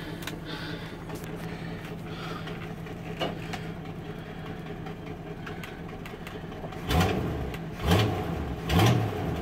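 1984 Chevy C10's 305 small-block V8 idling steadily, heard from inside the cab, then given three short throttle blips about a second apart near the end.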